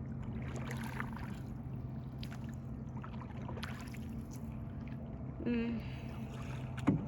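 Steady low drone of a motorboat engine running out on the lake.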